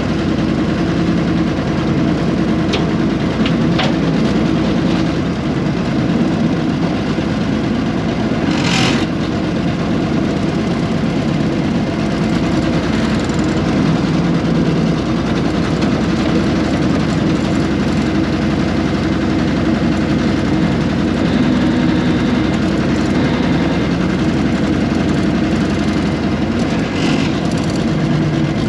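The air-cooled Deutz diesel of a 1970s RM.80 excavator running steadily, with a few light clicks and one short, sharp burst of noise about nine seconds in.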